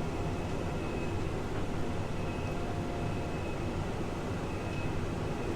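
Case IH tractor's diesel engine running steadily under load, heard from inside the cab as an even low drone with a faint steady whine above it.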